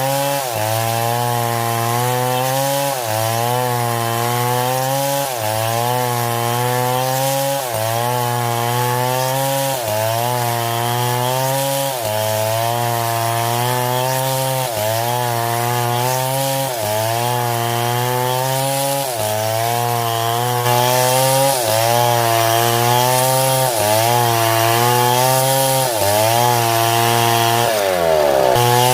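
Chainsaw cutting wood, its engine pitch sagging under load and recovering in a regular cycle about once a second. Near the end the pitch drops away as the throttle is eased off.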